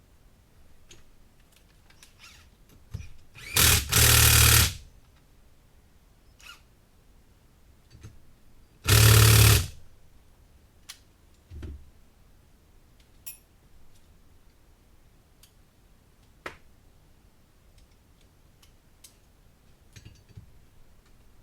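A power impact tool with a 10 mm socket runs down the flywheel nut on a two-stroke hedge trimmer engine in two short bursts of rapid hammering, about four seconds into the sound and again about five seconds later. Small clicks and knocks of tools being handled come between and after.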